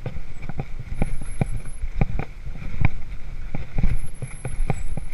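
2013 Haro Flightline Sport hardtail mountain bike clattering over a rough, rocky dirt trail: irregular knocks and rattles from the chain and frame, several a second, over a steady low rumble from the tyres and wind.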